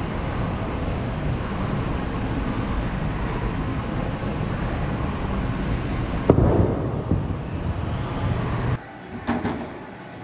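Bowling ball landing on the wooden lane at release about six seconds in: a sharp thud, then the ball rolling away, over the steady background noise of a bowling alley. Near the end the sound drops suddenly to quieter alley background, with a couple of short knocks.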